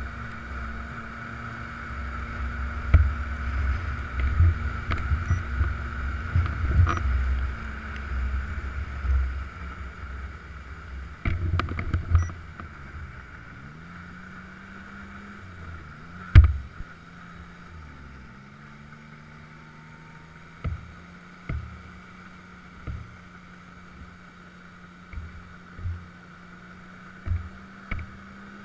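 Snowmobile engine running steadily, heard from on board, its pitch sagging and picking up again a few times around the middle as the throttle changes. Low rumbling and knocks through the first third, one loud knock about halfway, and a series of short thumps in the second half.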